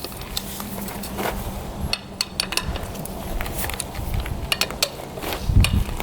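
A scattered run of sharp clinks and taps, like metal parts or tools being handled, over a low steady hum that fades about halfway through.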